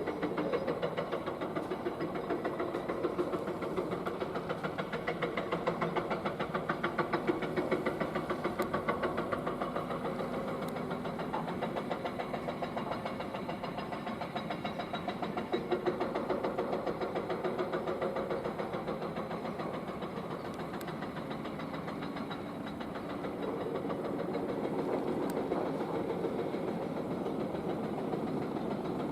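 Excavator's diesel engine running with a fast, even knocking beat, its pitch and level shifting a few times as the machine works.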